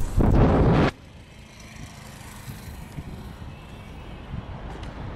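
Road traffic passing on an open road: a loud rush that cuts off suddenly about a second in, then quieter steady traffic noise that slowly grows louder near the end.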